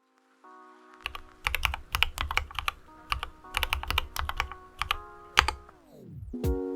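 Typing on a mechanical keyboard: bursts of quick keystrokes with short pauses between them. Soft background music plays under it, and its pitch slides down to a stop near the end.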